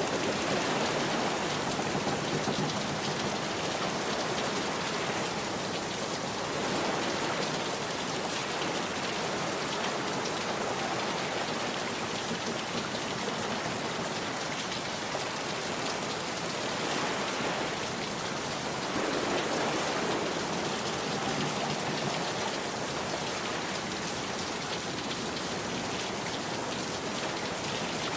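Rain pouring down steadily, with the downpour swelling louder about seven seconds in and again around nineteen seconds.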